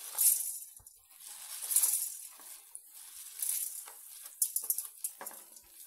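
Whole black peppercorns poured from a plate into an iron kadai in several short rushes, rattling and skittering on the metal.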